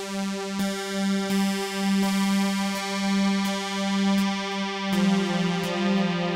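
Synthesizer music: a held keyboard note with rich overtones, with the notes changing about five seconds in.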